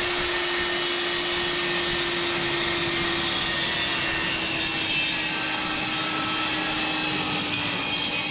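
Electric power saw cutting a wooden board, its motor running steadily, with the pitch sagging slightly under load and rising again near the end.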